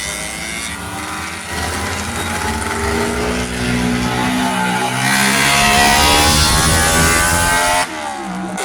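Classic Honda sports and racing motorcycles running past on a racetrack, their engines revving with the pitch rising and falling. The sound grows loudest about five seconds in, then drops off suddenly near the end.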